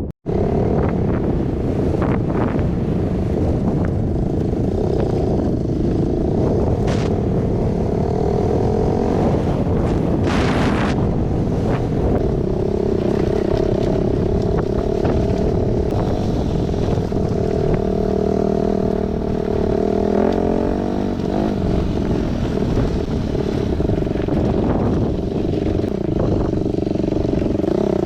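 Enduro motorcycle engine running while riding off-road, its pitch rising and falling with the throttle. A short hiss about ten seconds in.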